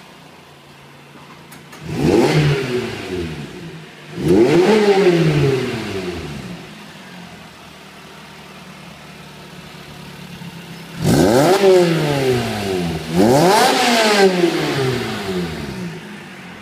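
Lotus Exige S with a Larini track exhaust idling, then revved four times in two pairs, each rev rising sharply and dropping back to idle over a second or two.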